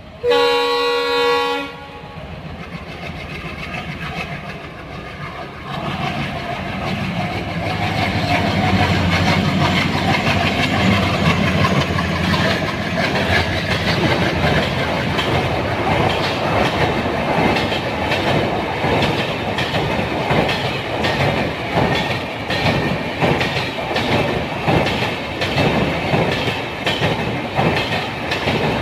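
WDM3D diesel locomotive sounds one horn blast of about a second and a half, then its ALCO engine chugs, growing louder until about eight seconds in as it comes up and passes. Passenger coaches follow, rolling by with a steady clickety-clack of wheels over rail joints.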